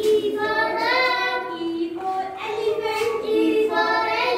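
Young children singing together in unison, in high voices with drawn-out notes.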